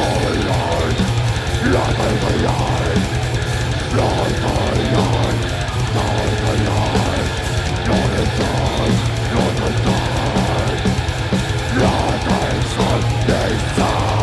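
Death metal band playing live: electric guitars, bass and drum kit in a loud, dense mix with fast drum strokes.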